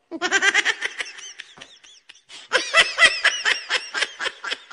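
A girl laughing hard in rapid, high-pitched bursts. There are two fits, the second starting about halfway through and running longer.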